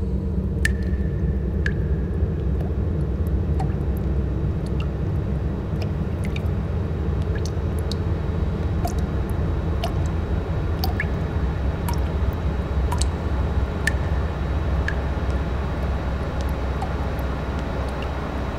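Steady low rumbling drone with scattered water drips and small clicks over it, a dark ambient sound bed.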